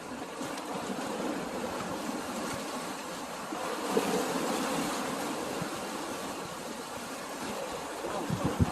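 Sea water washing and splashing steadily at the shore, with a few dull knocks near the end.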